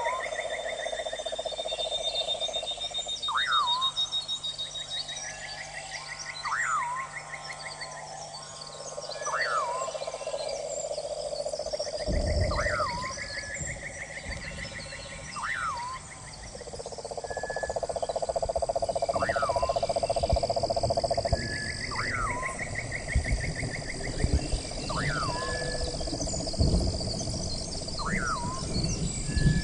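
A night chorus of frogs and insects: frogs calling in pulsing trills, insects shrilling steadily, and a short sharp call repeating every couple of seconds. About twelve seconds in, a low rushing noise with crackles joins the chorus.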